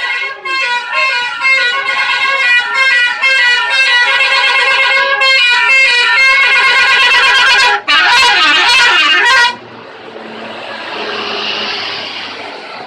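Indonesian bus 'telolet' multi-tone horn playing a fast melody of stepped tones, then a wavering trill about eight seconds in that cuts off suddenly a second and a half later. A quieter rushing noise then swells and fades.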